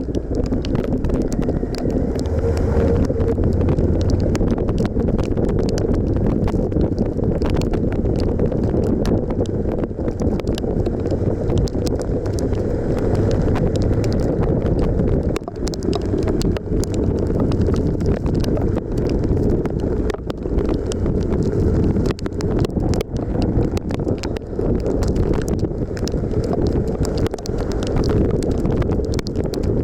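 Wind buffeting the microphone of a moving Suzuki V-Strom 1050XT motorcycle, a steady low rush, with the engine running underneath and scattered brief clicks.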